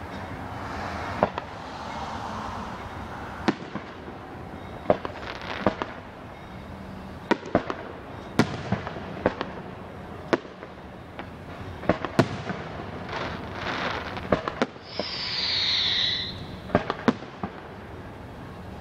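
Aerial fireworks display: a string of sharp bangs from bursting shells at irregular intervals, with crackling stretches. A descending whistle comes about 15 seconds in.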